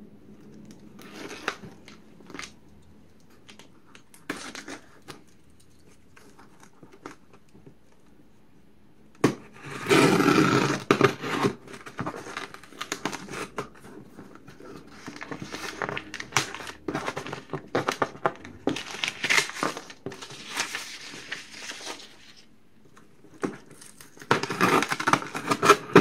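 Packing tape on a cardboard shipping box being slit with a pocket knife and torn open, with crackling tape and rustling cardboard. It starts with a few faint taps and scrapes, then loud tearing starts about nine seconds in and goes on in bursts, and a last loud tearing stretch comes near the end as the flaps are pulled open.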